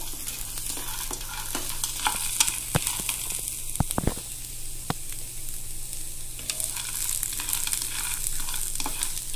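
Date seeds dry-roasting in a non-stick frying pan, stirred with a wooden spatula: a steady hiss with scattered clicks and rattles of the hard seeds on the pan, and a few sharper knocks about four seconds in.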